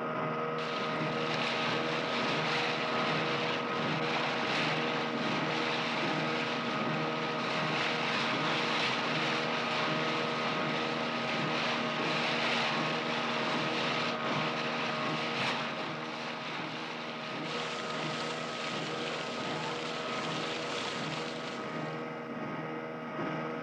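An engine running steadily, with a rushing noise over it that comes in just after the start and drops away near the end.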